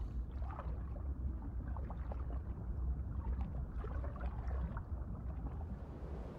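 Steady low underwater rumble with faint bubbling and scattered small clicks.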